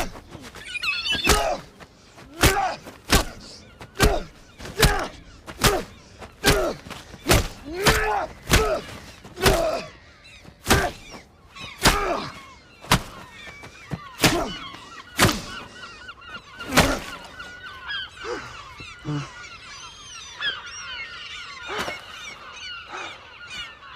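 A seagull squawking as it is beaten again and again against a hard surface: about twenty heavy thuds roughly a second apart, each with a short cry. The thuds and cries stop about two-thirds of the way through, leaving fainter calls of other gulls.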